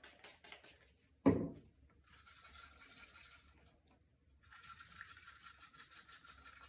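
Scratchy rubbing or scraping strokes in quick succession, with one sharp thud about a second in and a short pause just before the rubbing resumes.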